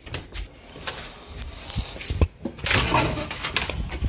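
Clicks and knocks of a glass-paned door's handle and latch as the door is unlatched and pushed open, with a loud rush of noise about three seconds in.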